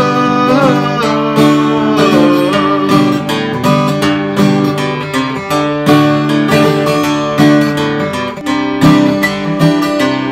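Acoustic guitar strummed in a steady country rhythm, with no singing over most of it.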